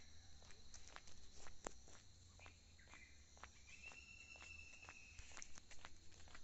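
Faint footsteps of a person walking on an unpaved dirt lane, about two to three steps a second, over a steady thin high-pitched hum. A single long, thin whistle-like call sounds about halfway through.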